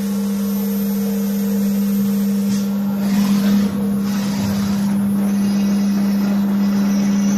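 CNC drilling and milling centre running its machining program, with a steady motor hum. A brief louder, rougher stretch comes about three seconds in.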